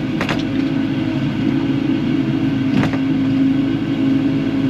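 Kubota KX080-4 excavator's diesel engine running steadily at working speed, with a few sharp knocks just after the start and one near three seconds in.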